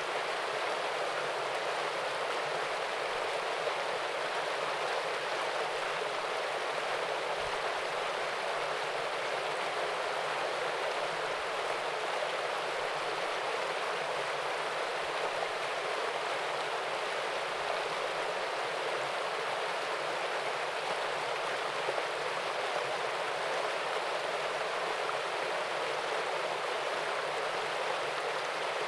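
Small waterfall and stream: water splashing and rushing steadily, an even rushing sound that does not change.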